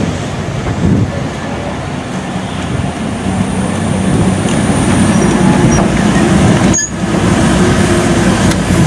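Vintage Great Western passenger coaches rolling past at close range, their wheels running on the rails, the noise growing louder from about four seconds in.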